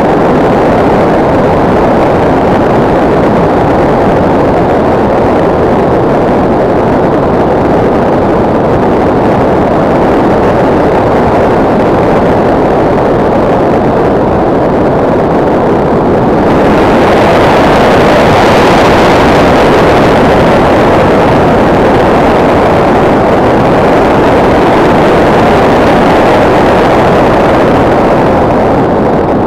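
Loud, steady rush of air buffeting the onboard camera of an RC model plane in flight. About halfway through the rush turns brighter and hissier and grows a little louder.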